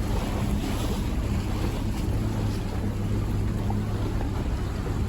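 A boat's engine running steadily with a low hum, under a rushing of wind and water.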